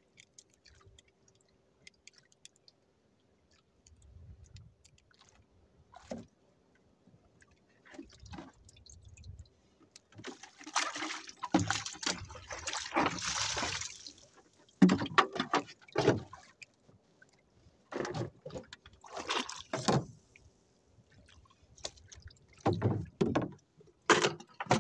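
Water sloshing and splashing, with knocks against the hull of a small outrigger fishing boat while a handline is worked. It is mostly quiet at first, with bursts of splashing and several sharp thumps in the second half.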